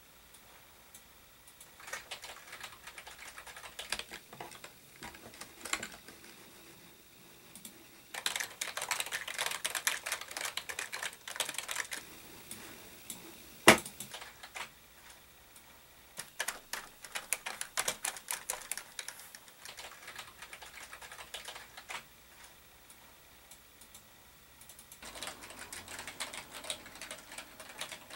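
Typing on a computer keyboard in bursts of rapid key clicks separated by short pauses. One sharp knock about halfway through is the loudest sound.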